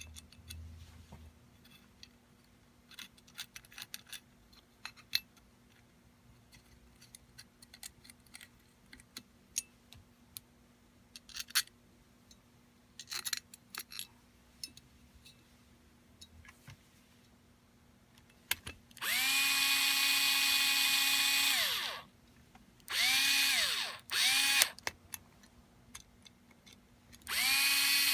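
Small metal parts and screws clicking and tapping as they are handled, then a small power driver running screws into an air rifle's scope rail: one run of about three seconds, two short bursts, and another run near the end. Each run spins up quickly to a steady whine.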